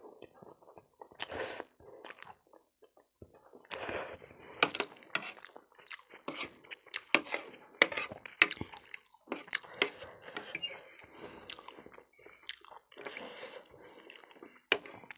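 Close-up eating sounds: noodles slurped in a few times, wet chewing and smacking, and many sharp clicks as a metal spoon and fork work on a ceramic plate, busiest in the middle.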